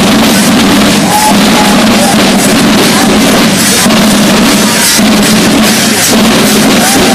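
Marching side drums beating a steady parade rhythm close by, with jingling of large harness bells worn on chest straps.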